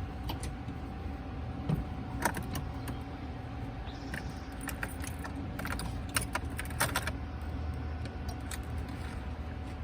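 Car keys jingling with scattered light clicks, bunched around two, four and six to seven seconds in, over a low steady hum.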